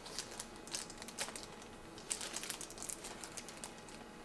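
Scattered light clicks and rattles from a plastic steering-column multifunction switch being handled with test leads clipped to its terminals.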